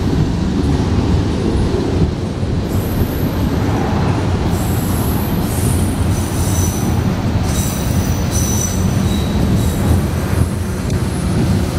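Freight train of tank cars rolling past under brake: a steady heavy rumble of wheels on rail, with thin high-pitched squeals from the braked wheels starting a few seconds in and coming and going.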